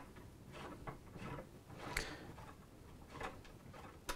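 Faint, scattered clicks of a hex key being turned in connector hardware as a plywood panel is tightened down. The sharpest click comes about two seconds in, and another comes near the end.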